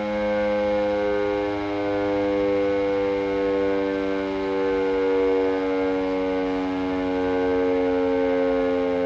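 Electric motor siren sounding the 6 p.m. time signal: one long held wail whose pitch drifts only slightly.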